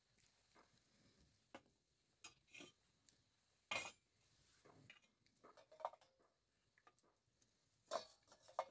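Sparse light clinks and knocks of a plastic cup, baby bottle and small metal bowl being handled, the loudest about four seconds in and a few more near the end, with near silence between.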